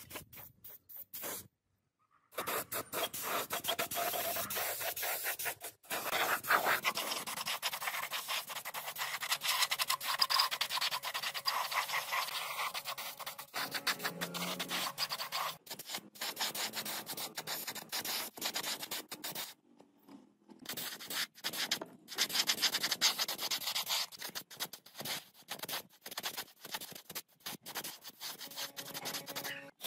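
Compressed-air paint spray gun hissing as it sprays silver paint onto a chainsaw's crankcase housing, in a fluttering stream with a few short pauses.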